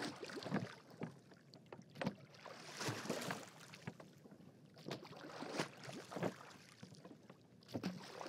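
Rowboat on water: oars splashing and water sloshing in irregular strokes about once a second.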